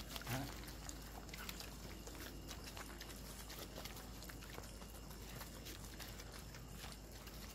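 Stray dogs eating from foil trays: faint, scattered chewing and crunching clicks, with a short low grunt just after the start.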